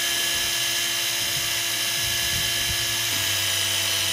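Daiwa Tanacom 750 electric fishing reel's motor running at a steady whine as it winds the line in fast.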